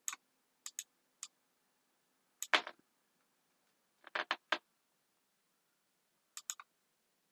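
Computer mouse and keyboard clicking: scattered short clicks in small groups of two or three, the loudest about two and a half seconds in, as a link is selected and copied.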